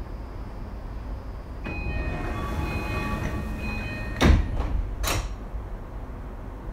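Tokyu 2020 series train at a station stop, its interior running with a steady low rumble. About two seconds in, a door chime sounds for a couple of seconds. The sliding passenger doors then thud shut about four seconds in, with a lighter knock and a second bump within the next second.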